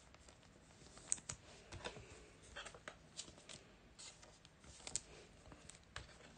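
Faint rustling and scattered light ticks of chrome trading cards being handled and slid past one another, with a couple of sharper ticks about a second in and near five seconds.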